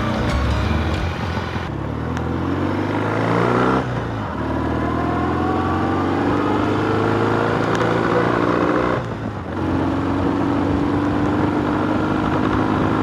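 Motorcycle engine under acceleration. Its pitch climbs, drops sharply about four seconds in as it shifts up, and climbs again through the next gear. It eases off briefly around nine seconds, then runs at a steady pitch.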